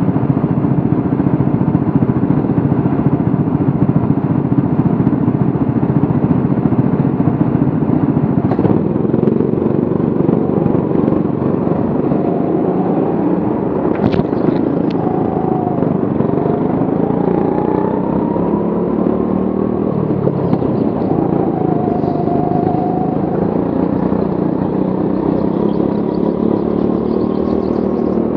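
Go-kart engines running hard, heard on board a racing kart, the driver's own engine close with other karts' engines rising and falling in pitch around it.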